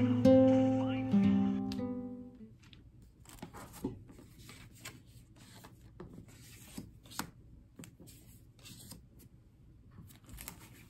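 Acoustic guitar music fading out over the first two seconds or so. After that, faint, scattered paper rustles and light taps from hands handling packaging materials.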